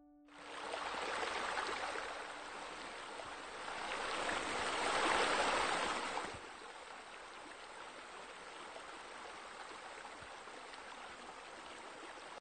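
Running, splashing water of a swimming pool's water features: arching deck jets falling into the pool and a spa spilling over. It is a steady rushing sound that swells twice in the first six seconds, then settles to a lower even level and cuts off abruptly at the end.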